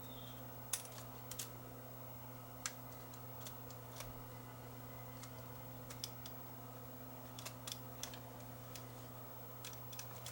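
Faint, scattered small clicks and taps of a camcorder tape mechanism's small metal and plastic parts being handled and fitted into place, about ten in all at irregular intervals, over a steady low hum.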